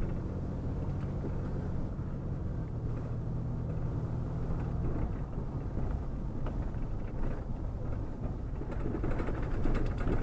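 Truck engine running and road noise while driving, a steady low hum whose pitch shifts about halfway through, with a few light rattles near the end.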